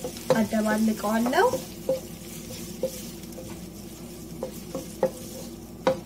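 Wooden spatula stirring diced chicken and peppers in a nonstick wok, scraping through the food with occasional short knocks against the pan, over a faint sizzle from the still-hot pan.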